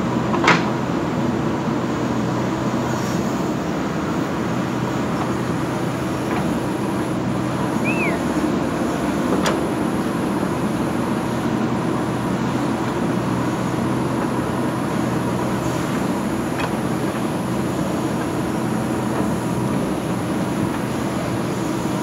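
JCB 3DX Super backhoe loader's diesel engine running steadily under load as the backhoe digs soil and swings it to the truck, with a few sharp knocks, the loudest about half a second in.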